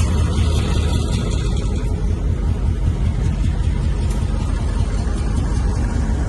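Diesel-electric freight locomotive running with a steady, heavy low rumble.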